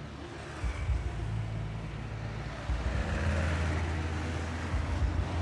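Road traffic of trucks and motorcycles going by, a steady low engine hum under tyre and road noise that swells louder about three seconds in as vehicles pass close.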